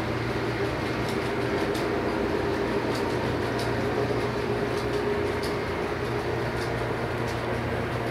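Lionel electric toy train running on its track: a steady whir of motor and wheels with a low hum, and light clicks about once a second.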